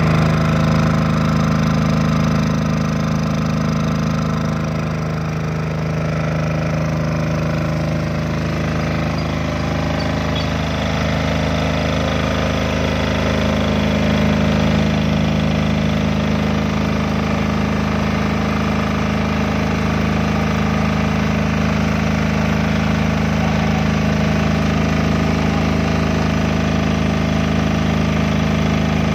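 Motoyama SE9000 silent diesel generator's engine running at a steady speed inside its soundproof enclosure.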